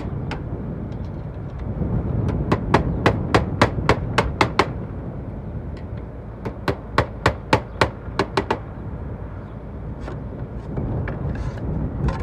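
A hammer nailing round-ended roofing slates onto a chimney. Two runs of quick, sharp blows, about four a second, each run lasting about two seconds.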